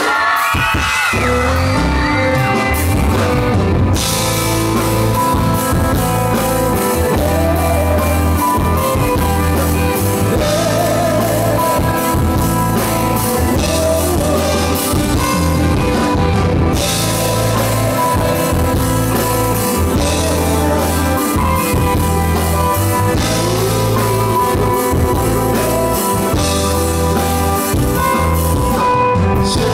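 Live pop-rock band playing a song on a concert stage: bass, guitars and a drum kit, with the full drums and cymbals coming in about four seconds in.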